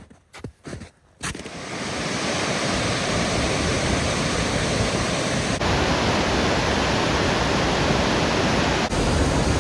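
A few soft footsteps, then about a second in a waterfall swollen with spring snowmelt comes in sharply as a loud, steady rush of water.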